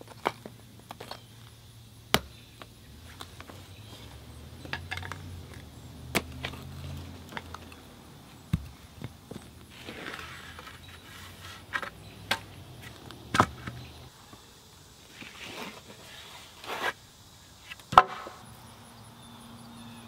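Hammer knocking on the wooden form boards and stakes around a freshly set concrete slab, tapping the forms loose: sharp, irregular knocks a second or two apart, the loudest near the end.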